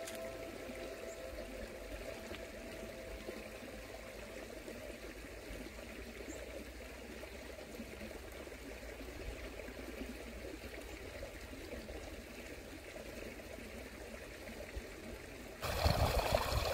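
Faint, steady outdoor hiss, then near the end a sudden, louder rush of water trickling and flowing at a small hot spring pool.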